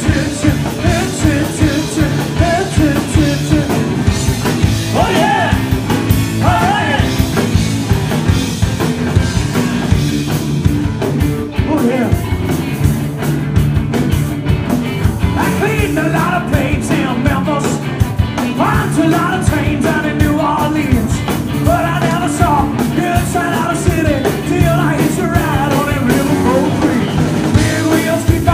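Live rock band playing a fast rock-and-roll song: drums, bass and electric guitar driving steadily, with a bending melodic lead over the top.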